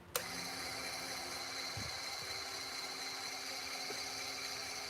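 Small electric suction pump switching on about a split second in and running steadily, a constant hum with a high whine.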